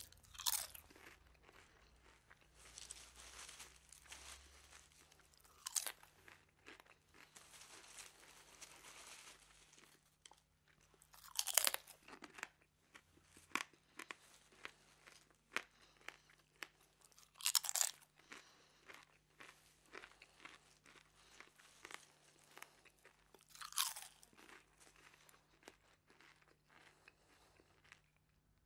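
Someone eating crispy French fries: five loud crunching bites about six seconds apart, with quieter chewing crunches in between.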